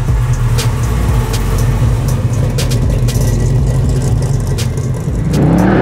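The 540 cubic inch big block V8 of a 1970 Jaguar XJ6 runs at low revs with a loud, deep exhaust rumble as the car rolls slowly. Near the end the revs climb.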